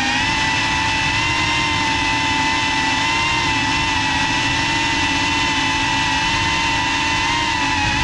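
Geprc FPV quadcopter's electric motors and propellers whining steadily in flight, heard from the onboard camera: a loud, high buzzing whine whose pitch wavers slightly.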